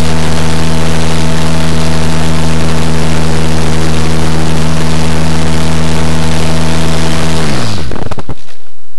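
Onboard sound of an Easy Glider Pro RC motor glider: its electric motor and propeller run at a steady pitch with loud wind noise. About seven and a half seconds in, the motor is cut and its whine falls away quickly as the propeller spins down, leaving quieter airflow.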